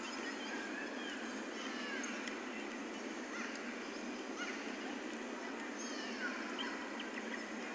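Birds calling in short, scattered chirps and whistles over a steady hiss.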